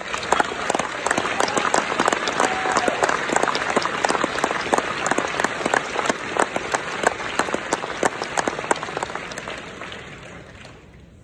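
Audience applauding: dense, even clapping that starts abruptly and dies away near the end.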